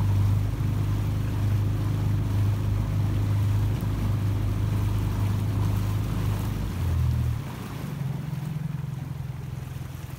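Fishing boat's engine running with a steady low hum. About seven seconds in its note changes and it gets clearly quieter.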